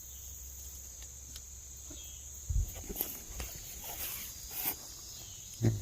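Steady high insect trill, with a few low thumps and clicks, the loudest about two and a half seconds in and another near the end.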